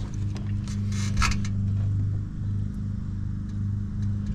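A steady low mechanical hum that wavers slightly in level, with a few light clicks and rustles about a second in as parts in the engine bay are handled.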